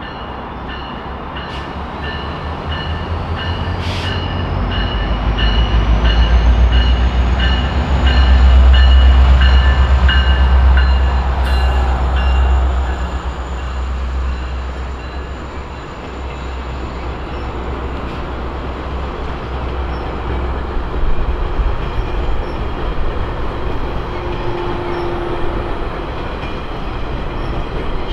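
GO Transit commuter train passing: the diesel locomotive's low engine rumble builds and is loudest about eight to eleven seconds in. After that the bilevel coaches roll by with steady wheel noise and occasional knocks over the rail joints.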